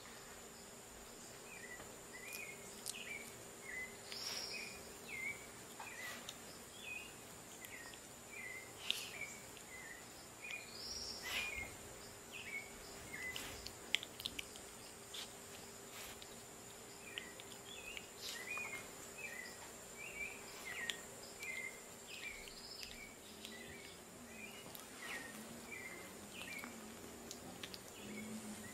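Faint chirping animal calls, short and repeated about one or two a second, with a few louder rising-and-falling squeaks, over a steady high-pitched whine.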